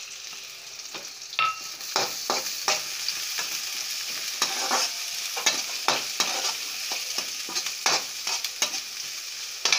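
Chopped onions sizzling in hot oil in a steel kadai, stirred with a perforated metal spatula that scrapes and knocks against the pan repeatedly from about a second in, over a steady frying hiss.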